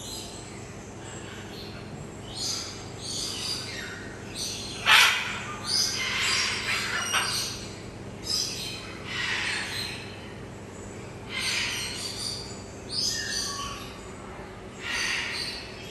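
Parrots squawking: about a dozen short, harsh calls in a row, the loudest about five seconds in.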